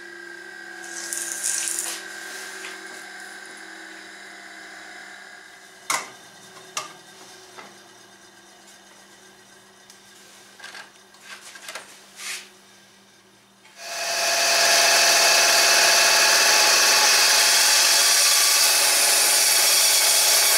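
A stationary power tool running quietly, with a few sharp knocks of wood being handled; about fourteen seconds in, a much louder steady cut starts: a band saw cutting through a glued-up block of wood.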